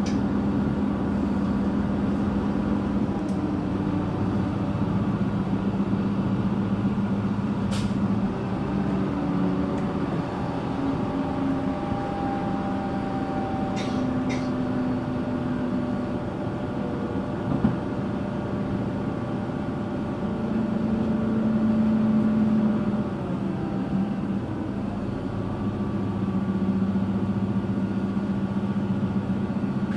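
Diesel passenger train running along the line, heard from on board: a steady running noise with an engine drone whose pitch shifts now and then, a few sharp clicks, and one louder knock a little past halfway.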